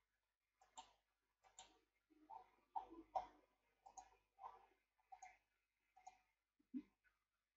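Faint computer mouse clicks and scroll-wheel ticks: about a dozen short separate clicks, roughly half a second apart.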